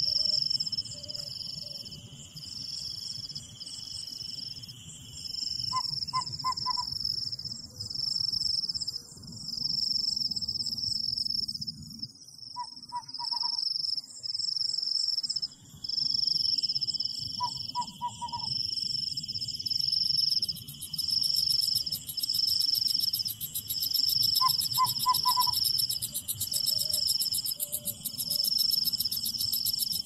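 Night forest ambience: crickets chirping in a regular pulse about once a second, with a steady insect trill beneath that fades out for a stretch mid-way and returns. A bird gives a short call of three or four quick notes four times, over a low rustle of wind in the branches.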